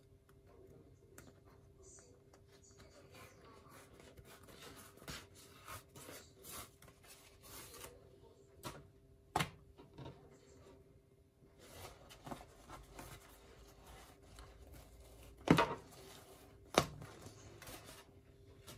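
Thin spring roll wrappers peeled apart sheet by sheet, giving a soft, papery rustling and rubbing. A few sharp taps cut through it, the two loudest about a second apart near the end.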